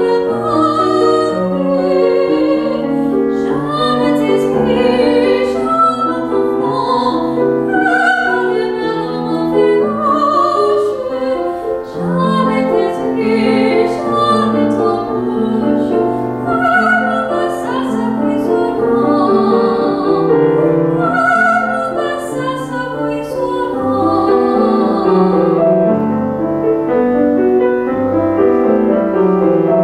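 Female classical singer performing an operatic art song with vibrato, accompanied by a Steinway grand piano.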